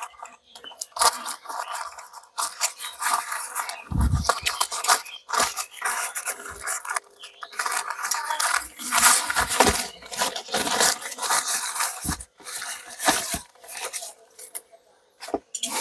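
Newspaper wrapping slit with a knife and pulled open: paper crinkling and tearing in irregular bursts, with one dull knock about four seconds in.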